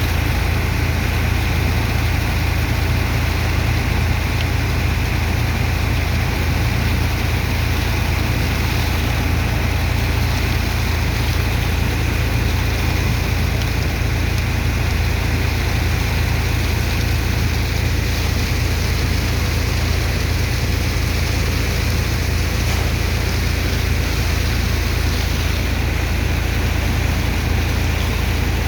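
Engine of a sand-unloading dredger's water pump running steadily: a strong low hum under a constant rushing hiss of water and sand.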